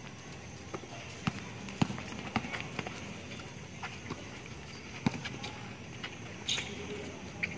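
Basketball bouncing on an outdoor hard court: scattered single thuds at irregular spacing, the sharpest a little after five seconds in, with players running on the court.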